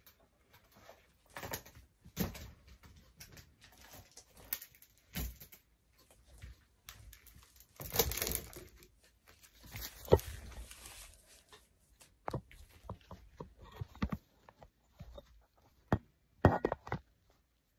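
Irregular thumps, knocks and rustling of a person moving about and handling clothes, with a longer rustle about eight seconds in and a sharp knock about ten seconds in.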